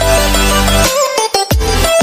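Electronic background music with a deep bass line and falling pitch sweeps.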